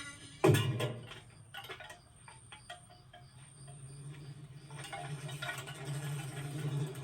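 Layered cartoon sound effects: a loud sudden hit, then scattered small clicks and ticks with faint short tones, then a low engine-like hum that starts near the end and grows louder.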